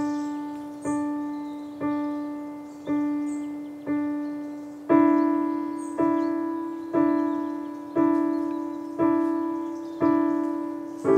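Background piano music: a single note struck about once a second and left to fade each time, moving up to a slightly higher note about five seconds in.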